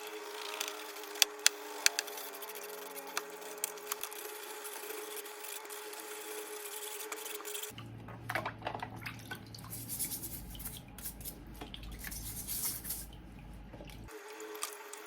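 Wet scrubbing and dripping water from washing greasy kitchen range-hood fan parts, with a few sharp clicks in the first two seconds. A low steady noise comes in for several seconds in the second half.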